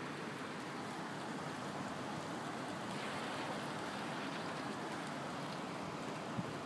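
Steady rain falling in a thunderstorm, an even hiss with a single short tick near the end.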